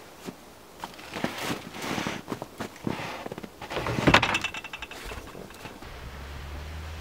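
Crunching steps in snow and knocks of a steel boat-trailer frame being handled, ending in a loud metallic clank with a brief ring about four seconds in as the trailer's coupler is set onto the car's tow ball. From about six seconds a car engine runs steadily.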